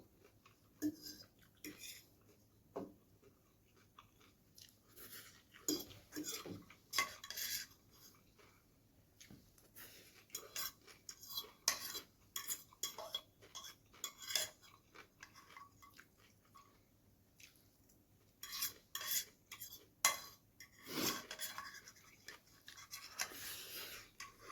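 Eating noodles close to the microphone: a utensil clicking and scraping against a dish, with chewing, in many short, irregular sounds.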